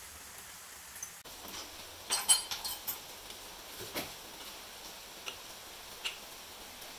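Light metallic clinks and taps as a metal spray gun and its brass tube are handled in a drill chuck: a quick cluster about two seconds in, then a few single ticks.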